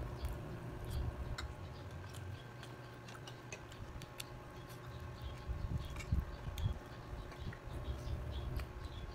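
Close-up eating sounds of chicken and rice eaten by hand: scattered small clicks and smacks of chewing and of fingers picking at the plate, with a few low thuds a little past halfway, over a faint steady hum.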